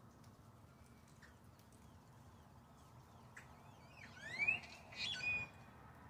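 Grackle calls: faint short falling notes, then a loud rising whistle about four seconds in, followed by a harsher, louder squawk about a second later.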